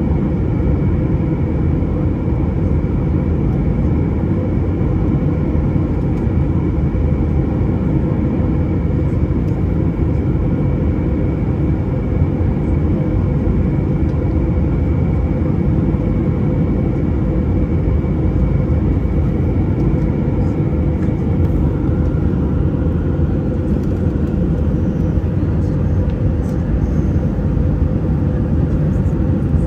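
Jet airliner cabin noise at a window seat beside the wing engine: a loud, steady drone of engine and airflow. A high whine in the drone fades out about two-thirds of the way through and a lower whine takes its place.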